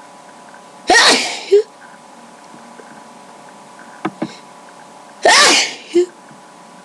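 A person sneezing twice, about four seconds apart, each sneeze a loud burst with a short second sound right after it. A brief sharp sound falls between the two sneezes.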